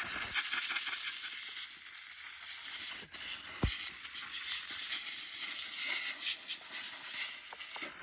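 Compressed-air nozzle hissing steadily as it blows grass clippings and dirt off a robotic lawn mower's chassis, with a brief break about three seconds in.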